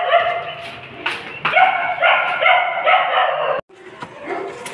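Dog whining in a run of loud, high-pitched, drawn-out cries. The cries cut off abruptly about three and a half seconds in, and fainter, lower whimpers follow.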